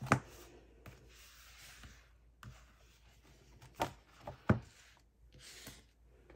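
Paper and cardboard album pieces being slid apart and set down on a desk: soft rustling of sheets, with a sharp tap just after the start and two more taps about four seconds in.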